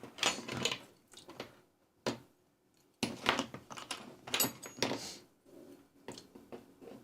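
Irregular clicks, knocks and short scrapes of hard plastic parts being worked loose as the switch and potentiometer assembly is pulled out of a battery trouble light's housing. There is one sharp click about two seconds in and a busier run of scraping and clicking in the middle.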